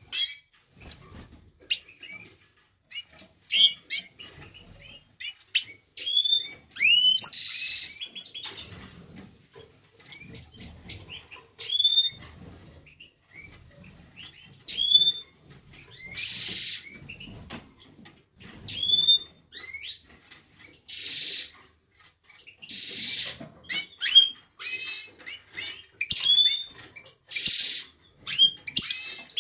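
Young European goldfinch (Carduelis carduelis major) twittering: a steady run of short, quick chirps that slide up and down, broken every few seconds by harsh buzzy notes.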